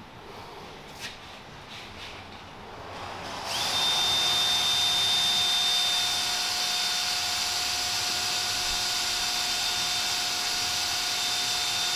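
Cordless drill working on a broken exhaust manifold bolt in a 5.7 Hemi cylinder head. A few faint clicks come first, then about three seconds in the drill spins up with a quick rising whine and runs at a steady pitch until it stops abruptly.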